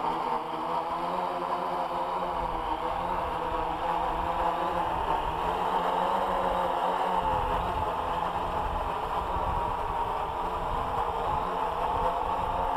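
AEE AP10 Pro quadcopter's propellers buzzing as it flies close by, the pitch wavering up and down as the motors change speed. A low rumble on the microphone joins from about seven seconds in.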